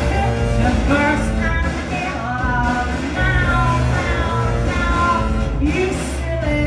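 Live electronic rock: a woman's singing voice over a loud, pulsing bass line and backing track.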